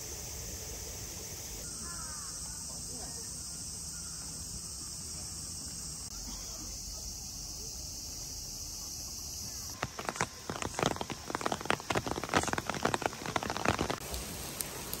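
Quiet outdoor ambience with a few faint bird chirps. About ten seconds in comes heavy rain, with large drops splashing loudly and irregularly close by for about four seconds.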